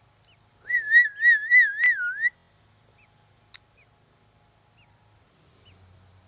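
A person whistles one warbling tone, wobbling up and down about five times over a second and a half. A few faint short chirps from the baby birds follow.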